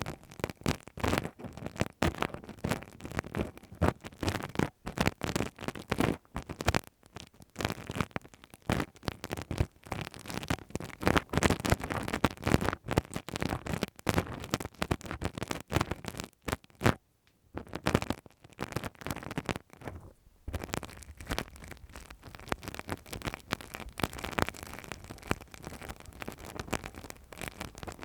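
Close-up ear-cleaning ASMR sounds: dense, irregular scratching and crackling scrapes, with two short pauses after the middle.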